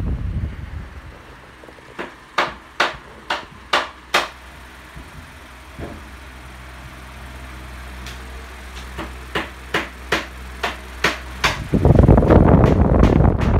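KDK W40Y 16-inch wall fan running with a steady low motor hum. The rush of its airflow hits the microphone in the first second and again loudly near the end, as the fan is filmed up close. In the middle come two runs of sharp clicks, about two a second.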